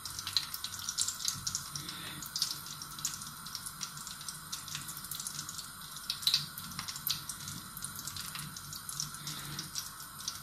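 Faint scattered ticks and crackles over a steady low hiss: cooking oil heating in a wok on a gas burner.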